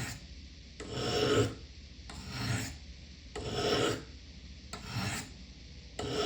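Knife blade drawn down the coarse stones of a Spyderco Triangle Sharpmaker in steady sharpening strokes, about five of them, each a short scrape with a brief pause between.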